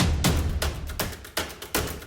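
Background music with a steady, fast drum beat: sharp percussive hits several times a second over deep bass thuds.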